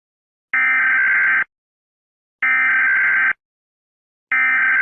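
Emergency Alert System SAME header: three bursts of harsh digital data tones, each just under a second long and about two seconds apart, the third starting near the end.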